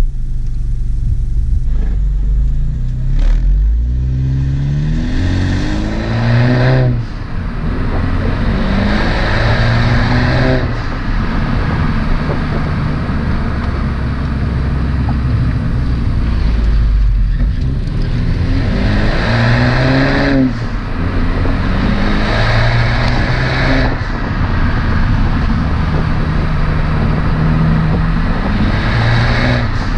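Honda Civic Hatchback Sport's turbocharged four-cylinder engine heard through its exhaust under repeated acceleration. The note climbs in pitch for a few seconds, breaks off briefly as the revs drop, then climbs again, several times over.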